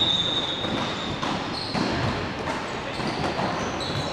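Futsal ball being kicked and bouncing on an indoor court, with several short knocks and high squeaks from shoes on the floor; the longest squeak comes at the start. The hall's echo is heard.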